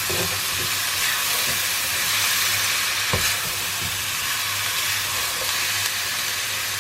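Chicken and vegetable stir-fry sizzling steadily in a hot pot as it is stirred, with a single knock about three seconds in.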